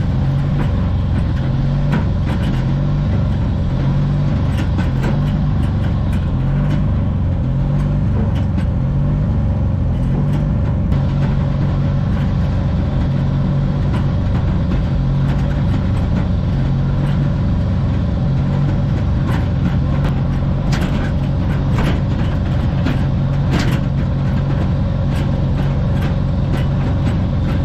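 Riding lawn mower engine running steadily while it tows a loaded trailer, with scattered clicks and rattles from the trailer.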